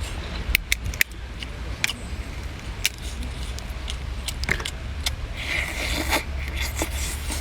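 Eating and handling seafood: scattered sharp clicks and clinks of shell and utensils, with a louder scraping, rustling stretch about five and a half seconds in, over a steady low rumble.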